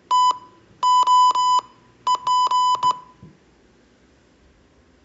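Morse code practice beeps, one steady high tone keyed on and off, spelling T, O, P: the end of the word "stop". A single dash, then three dashes, then dot-dash-dash-dot, ending about three seconds in.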